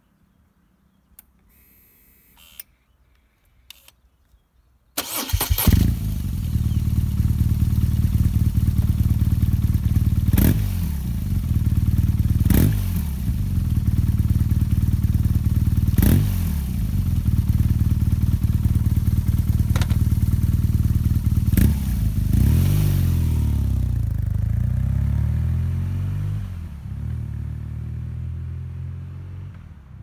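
BMW R nineT's 1170 cc air/oil-cooled boxer twin, heard at its twin stacked exhaust silencers, starting about five seconds in after a few clicks and a short buzz, then idling with several quick throttle blips, each rev falling back to idle. The sound fades out near the end.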